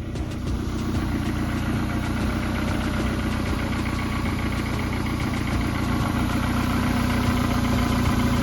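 An engine idling steadily, a little louder after the first second.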